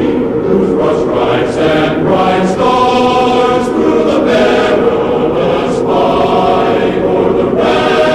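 A choir singing a national anthem, many voices holding chords that change every second or so.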